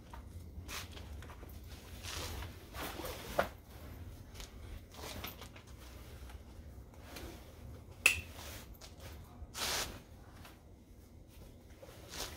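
Handling noises from assembling a Wonderfold W4 Elite stroller wagon: fabric rustling and rubbing with a few sharp plastic clicks from its fittings, the loudest click about eight seconds in.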